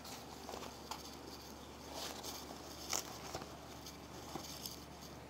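Faint background hum and hiss with a handful of scattered soft clicks and ticks, the sharpest about three seconds in.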